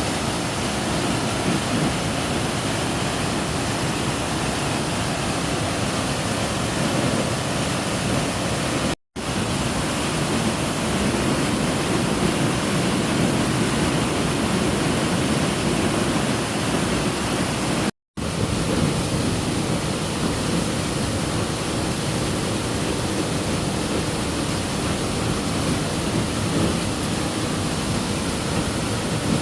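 Waterfall rushing with a steady, loud roar of falling water, broken twice by a split-second of silence about nine and eighteen seconds in.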